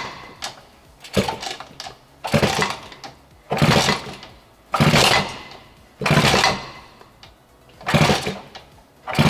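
1961 Peugeot S57B 125cc two-stroke scooter engine being kick-started over and over, about seven kicks a little over a second apart. Each kick spins the engine briefly, then it dies away without running.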